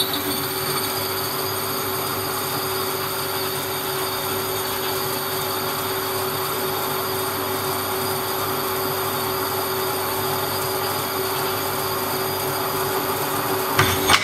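Drill press running steadily while a 1/8-inch bit drills a pilot hole in a metal plate, with a steady hum and a high whine. A short knock near the end.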